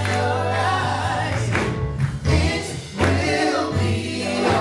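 Gospel singing by a small vocal group, men's and a woman's voices amplified through handheld microphones, over an instrumental accompaniment with a sustained bass line.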